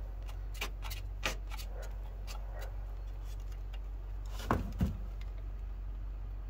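Small clicks and rustles of wires and hardware being handled at a metal electrical box while house wiring is connected, then two louder knocks close together about four and a half seconds in. A steady low rumble runs underneath.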